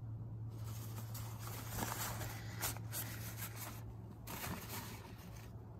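Paper towel rustling and crinkling as an oily transmission dipstick is handled against it, in two stretches with a short break about four seconds in, over a steady low hum.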